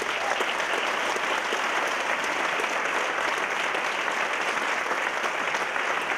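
Theatre audience applauding, a steady, even clapping.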